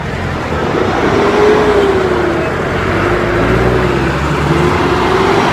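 Jeepney's diesel engine and road noise heard from inside the open passenger cabin as it drives through traffic, with a wavering whine that rises and dips from about a second in until near the end.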